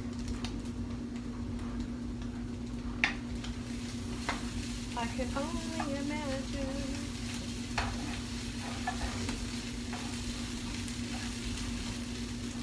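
Food frying and sizzling in a pan, the hiss growing stronger a few seconds in, with a few sharp clicks of a utensil against the pan over a steady low hum.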